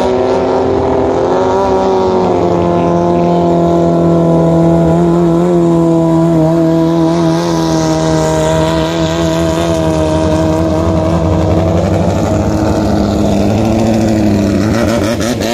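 Racing Thai long-tail boat engine running flat out, a loud, steady engine note as the boat speeds across the water and passes close by.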